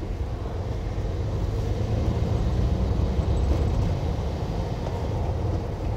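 Steady low rumble of engine and tyre noise from a vehicle driving along at steady speed.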